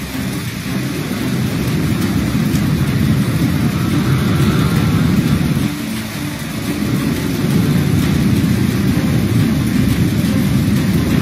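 Heavy rainstorm: steady rain noise under a deep, continuous low rumble that dips briefly about six seconds in.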